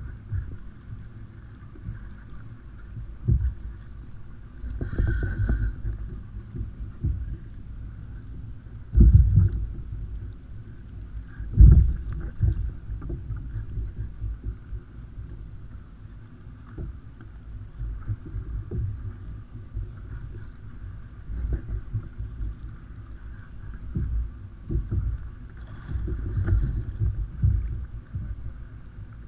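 Muffled, irregular low thumps and rumble of water slapping against a kayak hull, heard through a waterproof camera housing, over a steady low hum. The two heaviest thumps come about nine and twelve seconds in.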